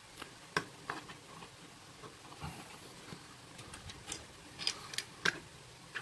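Scattered light clicks and taps from handling a Sonoff Basic smart switch's plastic case as it is set down on a cutting mat.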